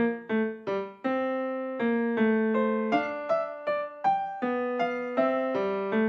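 Background music: a piano melody of single struck notes, about three a second, each ringing and fading before the next.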